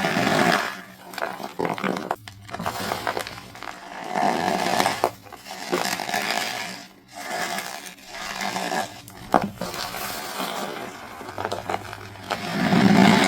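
Compressed cornstarch bricks being crushed by hand: repeated crunching squeezes that swell and fade every second or two, with sharp crackles in between.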